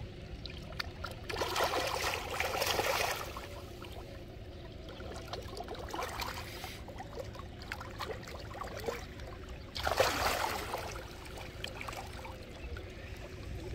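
Koi splashing and churning at the surface as they crowd together at the bank, with scattered small splashes and two louder bursts of splashing, one a couple of seconds in and one about ten seconds in.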